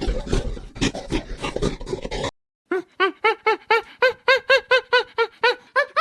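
Scratchy, clattering noise that cuts off about two seconds in, followed after a brief gap by an animal's rapid string of short, pitched cries, about five a second, each rising and falling.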